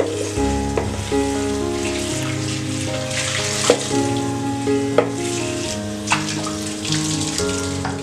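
Soft background music with sustained notes over a steady hiss, with several sharp clicks of kitchen work, such as utensils or dishes knocking.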